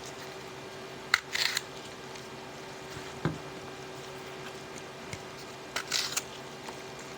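Kitchen knife cutting through apples on a cutting board: a click and a short crunch about a second in, a dull knock about three seconds in, and another crunch about six seconds in, over a steady background hum.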